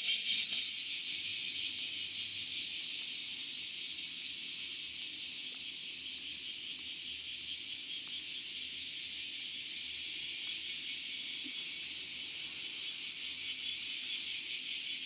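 Cicadas singing in summer: a dense, shrill chorus that goes on throughout and pulses in a quick, even rhythm that grows plainer and a little louder in the second half.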